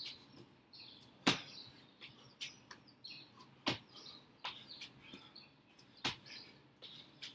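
Burpees on a brick patio: hands slapping down and sneakers landing on the bricks in sharp thuds. The loudest come about every two and a half seconds, with lighter ones in between.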